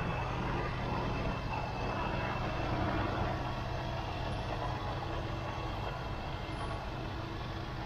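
Semi trucks' diesel engines idling, a steady low hum.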